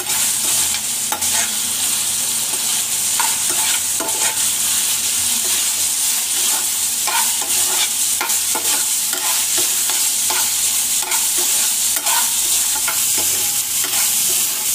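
Baby corn frying in a thick sauce in a non-stick pan, giving a steady sizzle. Throughout, a slotted steel spatula stirs and tosses the pieces, scraping and clicking against the pan at an uneven pace.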